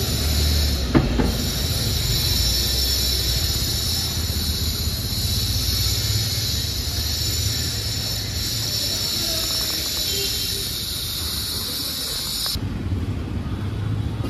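Steady urban outdoor noise: a low rumble under a constant hiss, with a short sharp clank about a second in. The hiss cuts off abruptly near the end.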